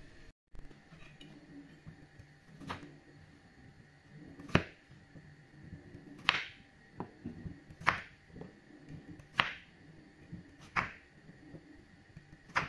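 Knife cutting through peeled raw potatoes and striking a wooden cutting board: about seven sharp cuts, roughly one every second and a half.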